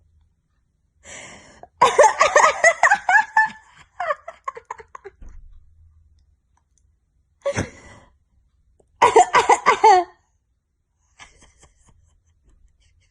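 A person coughing in fits of rapid coughs. A long fit starts about two seconds in and tails off, a single cough comes near eight seconds, and another short fit follows about nine seconds in.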